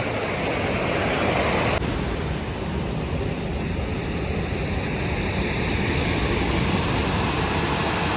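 Ocean surf washing on a beach: a steady rush of breaking waves, swelling over the first couple of seconds and dropping off suddenly about two seconds in.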